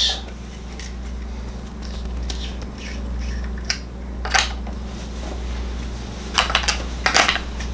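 A metal gas regulator and its vent fitting being handled on a workbench: scattered light clicks and clinks, with a cluster of sharper ones near the end, over a steady low hum.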